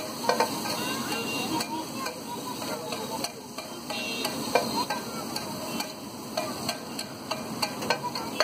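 Spiced pav bhaji masala frying on a large flat griddle while a metal spatula stirs and scrapes it across the plate. A steady sizzle runs under frequent sharp clicks and taps of the spatula on the griddle.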